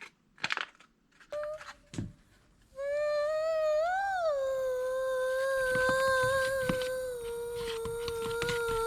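A few light clicks and knocks, then a voice humming one long high held note. The note swells up in pitch briefly about four seconds in and then holds steady.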